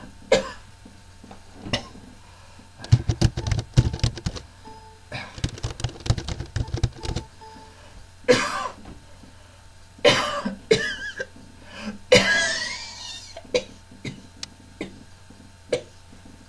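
A man coughing in repeated fits: single sharp coughs spread through, and a longer hacking cough about twelve seconds in.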